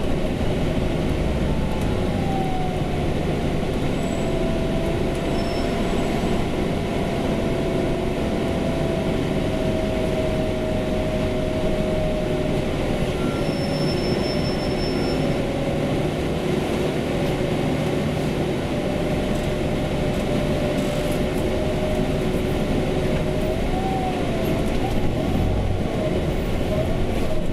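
Inside a moving city bus: the steady running noise of the bus, with a whine that sinks slowly in pitch and rises again near the end.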